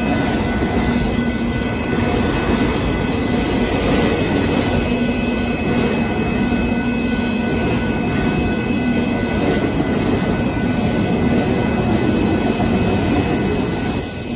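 Union Pacific freight train of autorack cars rolling past at close range: a steady, loud rumble and clatter of wheels on rail, with faint steady high-pitched tones above it.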